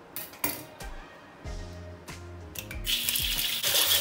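An egg tapped twice on the edge of a hot wok and cracked in, then a loud sizzle starting about three seconds in as the egg hits the hot oil. Background music plays underneath.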